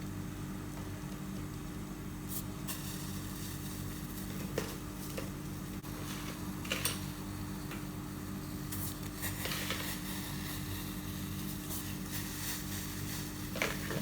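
A steady low mechanical hum with several even tones, like a running kitchen appliance or fan, with a few short clinks of kitchenware being handled.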